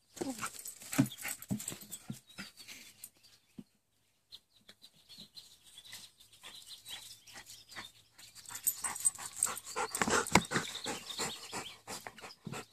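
Labrador puppy panting and mouthing its rubber chew toys: many short clicks and breaths, busiest in the last few seconds.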